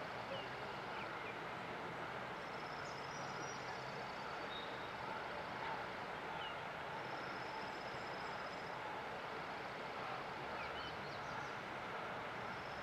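Steady rush of river water, with a small songbird's high, rapid trill repeating three times, a few seconds apart, and a few short chirps in between.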